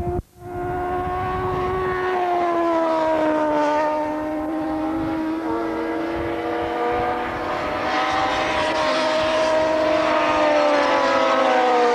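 Racing motorcycle engines running at high revs, their pitch sinking and then rising again as the bikes go through the bend. The sound cuts out briefly just after the start, and near the end several bikes are heard together, louder.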